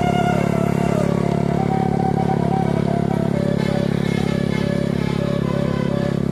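Steady engine drone of a moving road vehicle, with a melody of held, stepping notes sounding faintly over it.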